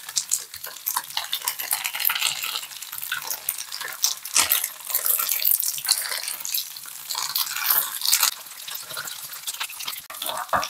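Tofu slabs sizzling and crackling in hot oil in a frying pan, with the scrape and knock of a spoon and a wooden spatula as a thick doenjang-sesame sauce is spread onto them.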